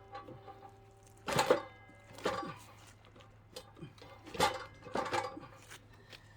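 Four or five separate knocks and clunks of a wooden log being handled at a sawing machine, several with a short metallic ring, over a faint steady hum.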